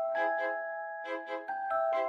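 Instrumental background music: short notes recurring in pairs over held tones.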